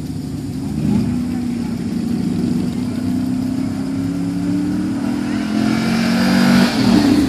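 Pickup truck's engine running hard on a timed run down a dirt track. It picks up about a second in, holds a fairly steady pitch and grows louder as the truck approaches, loudest near the end.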